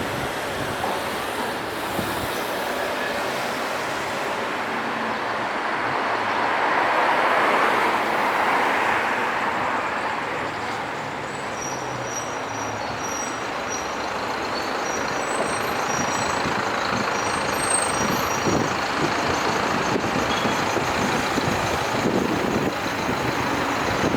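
Downtown street traffic: steady road noise, with a vehicle passing close and loud about a quarter to a third of the way in. Faint short high peeps come in the second half.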